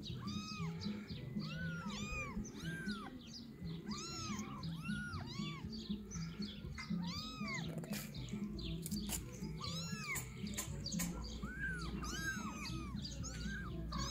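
Young kittens mewing over and over: short, high cries that rise and fall, about two a second, some overlapping. A low steady pulsing sound runs underneath, and there are a couple of sharp clicks about halfway through.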